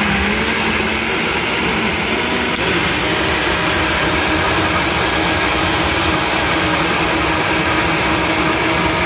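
Vitamix Total Nutrition Center blender running at high speed, blending a thick batter of eggs, cheese and pork rinds: a loud, steady whir. Its pitch steps up about two and a half seconds in as the speed is turned up.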